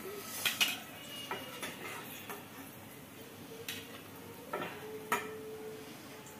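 Light clinks and taps on a ceramic serving plate as fried aloo tikkis are set down on it: a handful of separate strikes, the loudest about five seconds in, followed by a short faint ring.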